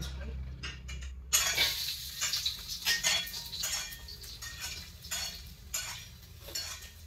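Garlic and shallots dropped into hot oil about a second in and sizzling, while a metal spatula clinks and scrapes in the pan as they are stir-fried.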